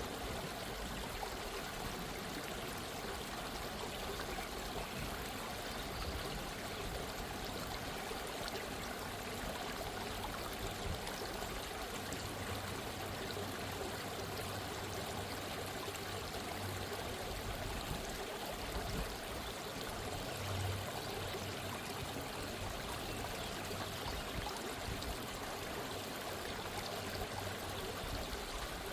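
A gently running stream: steady babbling and trickling water.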